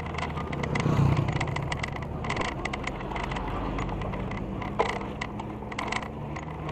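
A mountain bike rolling over concrete, with rattles and clicks from the bike and a loud low rumble about a second in. A low steady engine hum from vehicles nearby runs underneath.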